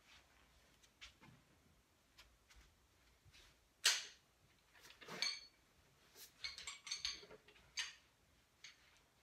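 Scattered knocks and clatter of a person moving about and sitting down on a black exercise step, with one loud knock about four seconds in and a quick run of sharp clicks and clacks a little later.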